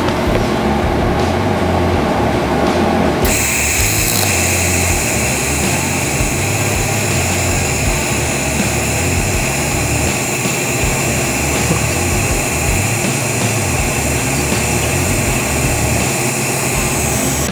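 TIG welding arc on a stainless steel O2 sensor bung, back-purged with argon: a low hum at first, then the arc strikes about three seconds in and runs as a steady high-pitched buzz and hiss until it cuts off near the end.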